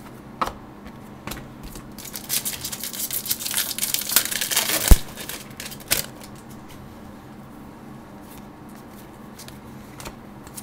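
A foil hockey-card pack wrapper being torn open and crinkled for about three seconds, ending in one sharp snap, then a few light clicks of cards being handled.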